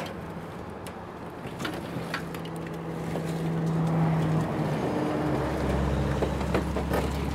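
A heavy diesel engine running steadily. Its note shifts about four and a half seconds in, and a deeper drone joins a moment later as it grows louder. A few light clicks sound over it.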